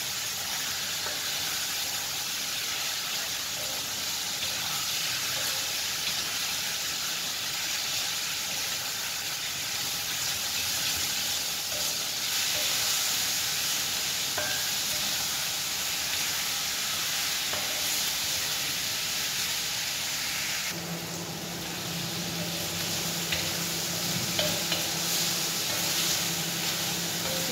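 Chicken breast cubes sizzling as they fry in hot oil in a wok, with a wooden spatula stirring and scraping them against the pan. A steady low hum joins about two-thirds of the way through.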